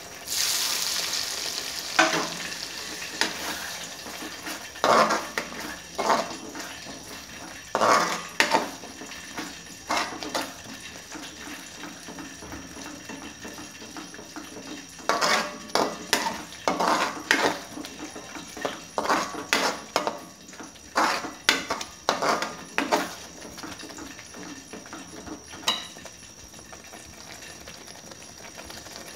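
Hot frying oil ladled into spiced masala paste in a pan sizzles loudly at first, then settles to a steady sizzle as the masala fries in it. A metal slotted spoon stirs and scrapes against the pan in repeated bouts of clicks and scrapes.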